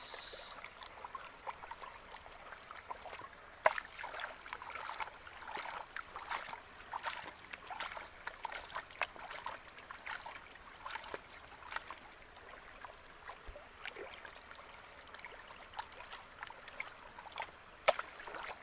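Water sloshing with many small, irregular splashes as wet sand is swirled and worked by hand in a pan, washing the sand away to leave the fine gold.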